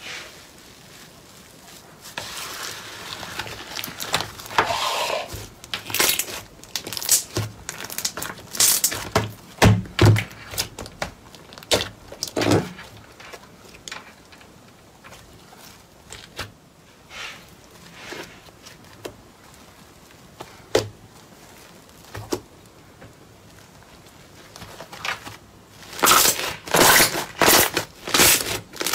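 Hands pulling, stretching and squeezing thick orange slime, giving irregular crackles and sticky pops, then a quick run of them near the end as the slime is kneaded against a table.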